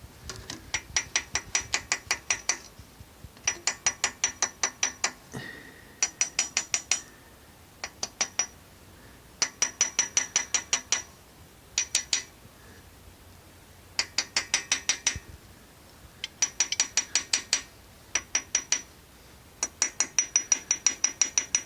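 Bursts of rapid light metallic tapping, about ten ringing taps a second, lasting a second or two each and repeated about nine times. This is an engine part being tapped to imitate a knock, here the kind of knock made by the camshaft bearing beds ("постели").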